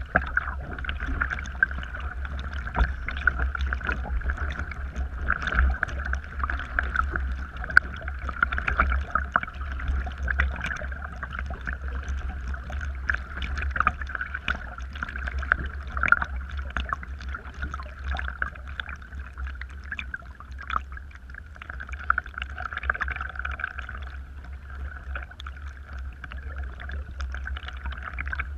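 Water splashing and lapping around a sit-on-top kayak as it is paddled with a double-bladed paddle, with many small irregular splashes over a steady low rumble.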